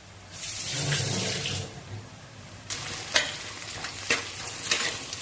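Sliced onions and green chillies sizzling in hot oil in a clay pot, stirred with a spoon that clicks against the pot several times; the onions are browning.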